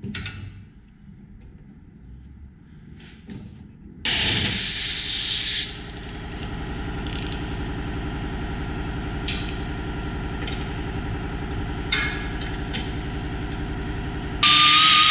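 Pneumatic impact wrench run twice on the rear leaf-spring shackle bolts, each burst about a second and a half long: once about four seconds in, and again near the end with a steady whine. A steady low machine hum carries on between the two bursts, with a few light knocks.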